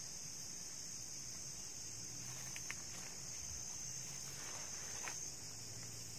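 Steady high-pitched chorus of insects that stops about five seconds in, with a few faint small ticks.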